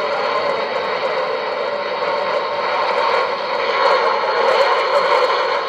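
CB radio speaker hissing with a steady rush of static from an open channel, with faint garbled, warbling signals under the noise.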